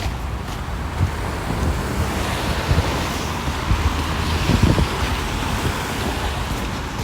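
A vehicle passing on the snowy street: tyre hiss swells, peaks about two-thirds of the way through and fades, over a steady low rumble of wind on the microphone.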